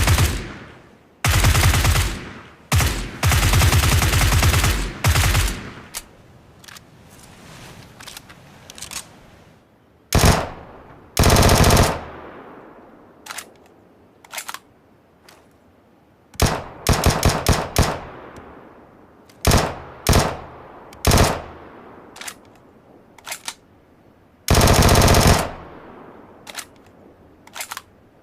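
Gunfire sound effects: bursts of rapid automatic fire alternating with single shots, each trailing off in a fading echo. The longest burst runs a few seconds near the start.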